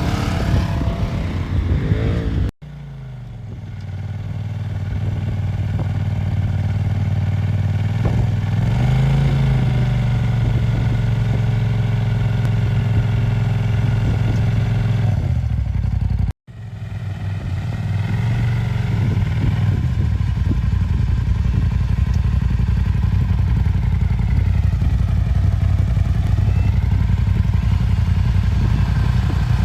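Off-road vehicle engine running steadily, its revs swelling and easing a few times. The sound cuts out abruptly twice, about two and a half seconds in and about halfway through, and the engine comes straight back each time.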